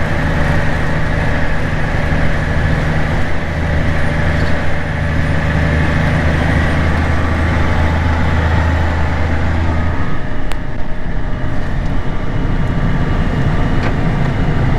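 A heavy diesel engine of farm machinery running steadily with a deep drone. The lowest part of the hum drops away about ten seconds in.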